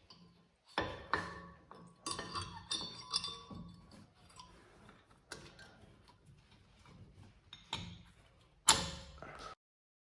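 Metal clinks and knocks of brake pads and their clips being handled and fitted into a disc brake caliper: scattered sharp clicks with short ringing, and one louder knock near the end.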